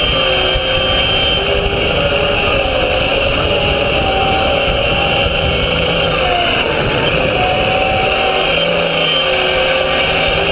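RC scale Liebherr 944 Litronic excavator's hydraulic pump whining over a steady low rumble, its pitch shifting up and down as the boom, arm, bucket and swing move under load.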